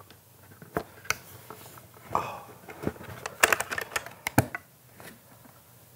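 Scattered small clicks and taps of brass latches being worked on a wooden box and the box being handled, with a quick run of clicks about three and a half seconds in.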